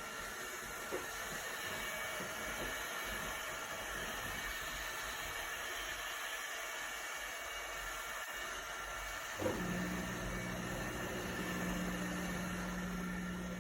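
ILIFE A12 Pro robot vacuum running with a steady, quiet hiss and whir. About nine and a half seconds in there is a small knock, then a steady low hum joins and holds.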